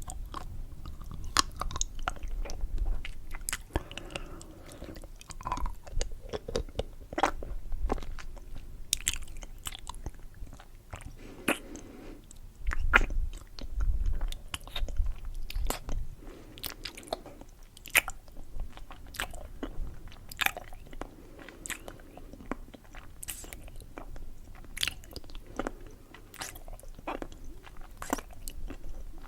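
A person chewing and biting candy close to the microphone: irregular sharp crunches and clicks, with softer wet chewing between them.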